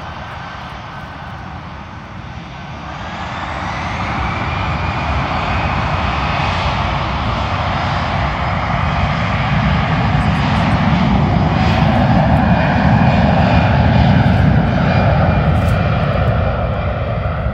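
Jet airliner's engines powering up for takeoff: a whine rises about three seconds in, then the engine noise grows louder and stays heavy as the plane rolls down the runway.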